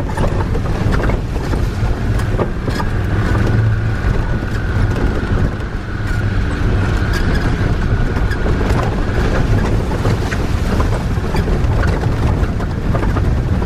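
Off-road vehicle's engine running steadily as it fords a stream, with water splashing against the windscreen and body, heard from inside the cabin. Scattered knocks come through as it rolls over the rocky bed.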